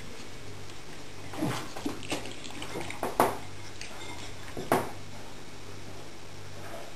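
Beagle licking a plate on the floor, the plate knocking against the floor a few times, the sharpest about three seconds in.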